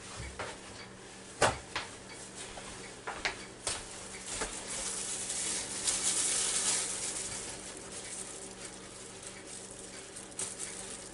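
A paper towel rustling and crinkling in plastic-gloved hands, with a few light clicks and knocks in the first half and a longer, louder rustle around six seconds in. A faint low steady hum runs beneath.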